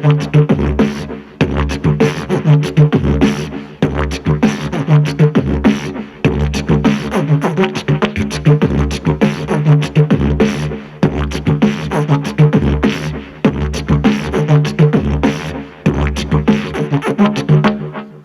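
C# Saxo-Didge (a didgeridoo) droning in a funky groove, with beatboxed kicks and snares voiced through it in a fast steady rhythm. The drone dips briefly about every two seconds.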